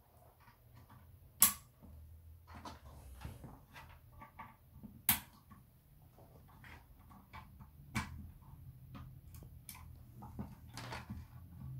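Handling noise from a plastic ASUS router and its network cables being plugged in and moved about: scattered small clicks and rustles, with three sharper clicks, the loudest about a second and a half in.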